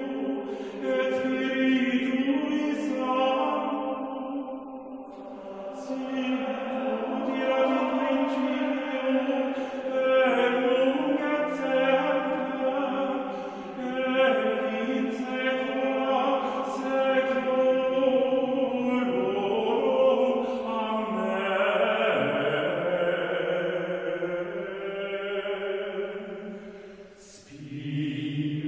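Background music of choral chant: voices holding long sung notes that move from pitch to pitch.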